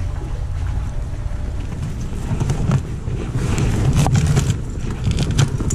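Wind buffeting the microphone as a steady low rumble, with scattered small clicks and rustles, more of them in the second half.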